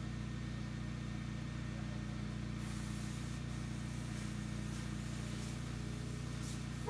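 Sino Star S9 touchless car wash machine running: a steady low motor-and-pump hum, joined about two and a half seconds in by a hiss of spraying water.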